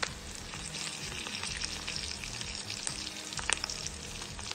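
Dried fish (tuyo) frying in hot oil in a pan: a steady sizzle full of fine crackles, with a couple of sharper pops, one near the start and one about three and a half seconds in.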